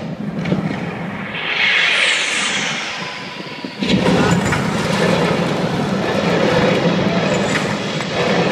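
Sound effects from a projection-mapping show soundtrack over loudspeakers: a rushing whoosh that falls in pitch about two seconds in, then a sudden loud, dense rumble a little before four seconds that carries on, heavy like a passing train or engine.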